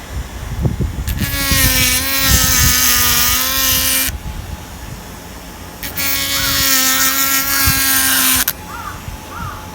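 Small electric power tool, likely a rotary carving tool, run twice for about three seconds each with a steady whine, stopping sharply, as deadwood (shari) is carved into a shinpaku juniper's trunk.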